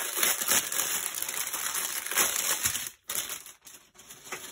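Strip of plastic bags of diamond painting drills crinkling as it is handled and unfolded, a dense crackle that drops off about three seconds in.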